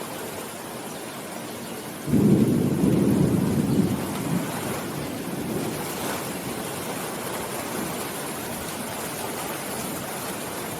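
Steady rain falling, with a low roll of thunder that breaks in suddenly about two seconds in and dies away over the next few seconds.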